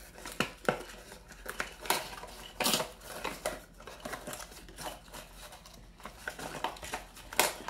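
Small cardboard box being opened by hand: its flap pried and pulled open, with irregular short scrapes, taps and rustles of the card. The loudest come a little under three seconds in and near the end.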